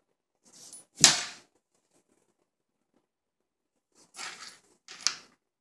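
A cat flopping down and rolling on a hardwood floor: a sudden thump with a brushing scuff about a second in, then two short scuffs of fur and body rubbing on the boards near the end.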